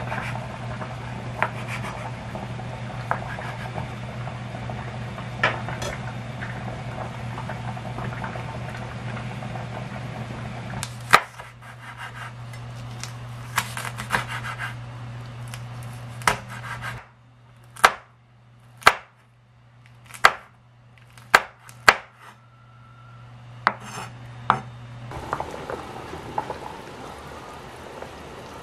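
Kitchen knife chopping fish cake and vegetables on a wooden cutting board: scattered sharp knocks of the blade on the wood, closest together in the second half, over a low steady hum. Near the end a pot of water bubbles at the boil.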